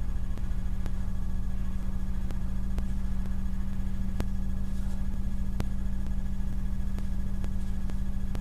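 Steady low electrical hum, like mains hum, with a few faint clicks.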